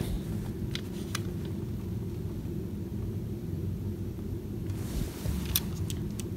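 A steady low background hum throughout. Faint light clicks about a second in and a few sharper clicks near the end come from handling the small die-cast toy truck.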